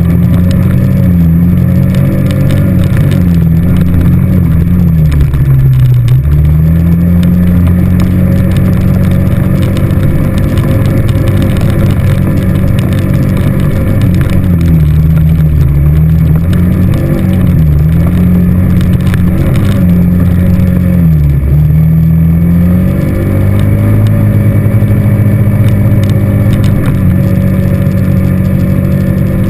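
ATV engine running under way, loud and steady, its note dipping and picking back up several times as the throttle eases and opens again; from about three-quarters through it holds a steadier, slightly higher pitch.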